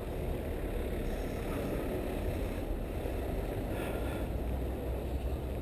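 A steady, deep rumble of wind buffeting the microphone of a camera moving through a snowy street at night.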